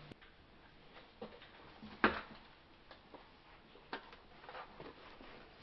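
Scattered soft knocks and taps, the loudest about two seconds in and another just before four seconds.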